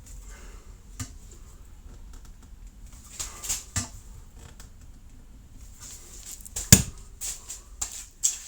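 A brass trumpet bell being worked with a nylon rod to push out dents: scattered light knocks and clicks with brief rubbing, and one sharper knock about two-thirds of the way through.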